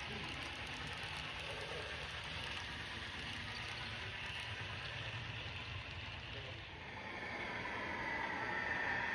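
Steam locomotive running: a steady hiss over a low rumble, with a higher steady tone coming in over the last two seconds.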